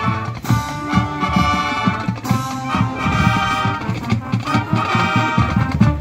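College marching band playing, brass over a steady beat of low drum strokes, with two sharp crashes about half a second and two seconds in.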